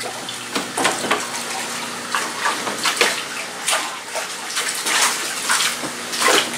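Water splashing and sloshing in irregular strokes as tilapia thrash in a landing net held in a fish tank and a hand reaches in to grab one. Under it runs the steady hum of the tank's filtration.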